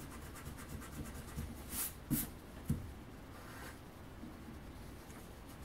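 Pencil drawing short strokes on paper, a soft scratching with two stronger strokes about two seconds in.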